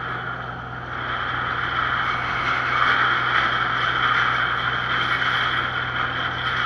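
Boat engine running steadily, with a constant low hum under a loud hiss of wind and water.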